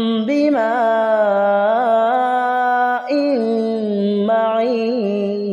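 Male voice chanting Quranic recitation in melodic tajweed style. It holds long drawn-out notes with slow ornamented turns in pitch, the closing words of the verse.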